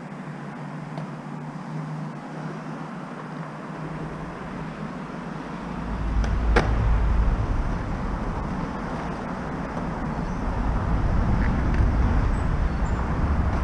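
Outdoor urban background: a steady hiss of traffic. About six seconds in a deep rumble sets in and stays, and a single sharp clack comes shortly after.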